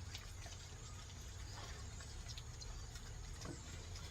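Egg frying in a pan of hot oil: faint, scattered crackles and small pops over a steady low rumble.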